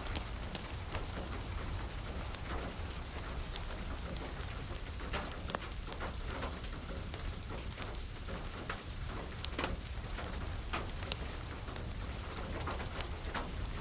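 Steady rain falling, mixed with scattered sharp pops and crackles of a burning wood fire.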